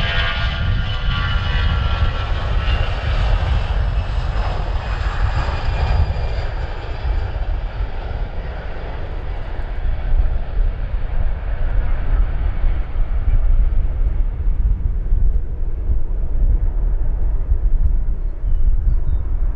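Jet airliner's engines passing close by: a whine of several tones that falls slightly in pitch and fades over the first ten seconds or so as the jet moves away, over a low rumble that carries on.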